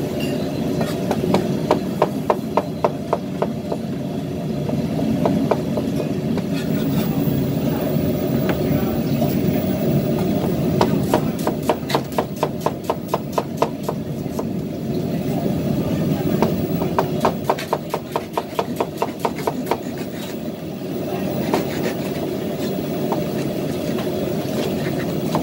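Chinese cleaver chopping on a plastic cutting board, slicing lotus root and vegetables in several runs of quick, even strokes, about four or five a second, over a steady background hum.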